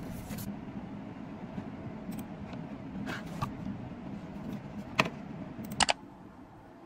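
Steady low background rumble with a sharp click about five seconds in and two quick clicks shortly after, then the sound drops away to a faint hiss.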